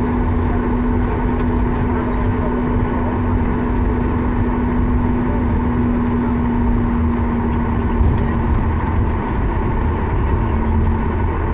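Cabin noise of a Boeing 737 MAX 8-200 taxiing, heard from a window seat over the wing: its CFM LEAP-1B engines at idle thrust with a steady hum and a low rumble from the rolling wheels.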